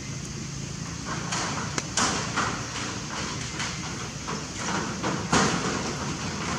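Dry fallen leaves rustling and crunching in irregular bursts, the loudest about two seconds in and again past five seconds.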